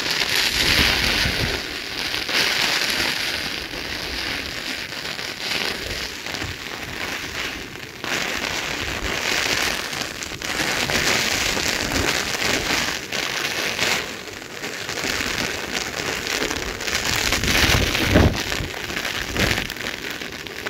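Heavy rain of a hailstorm falling in gusty wind, the hiss rising and falling with the gusts. Wind buffets the microphone, loudest in a blast near the end.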